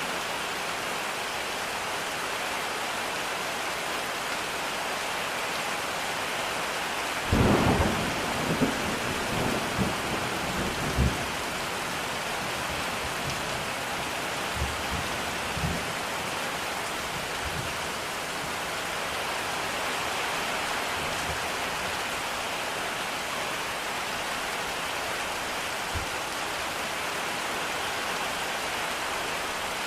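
Steady rain, with a clap of thunder about seven seconds in that rumbles on in several low cracks for about four seconds, then a few fainter low rumbles later.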